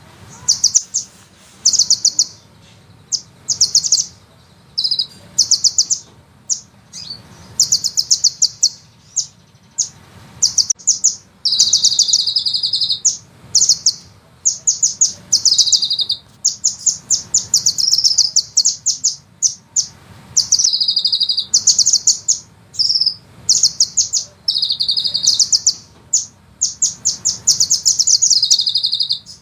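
Sunbird singing: a long run of high, very fast trills in short bursts of rapidly repeated notes, one after another with brief gaps, some bursts sliding lower at the end. This is the rapid rolling trill that bird keepers call 'ngeroll'.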